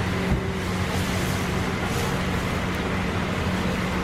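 Steady roar of a gas wok burner under chilli chicken being stir-fried, with a low hum and one dull knock about a third of a second in.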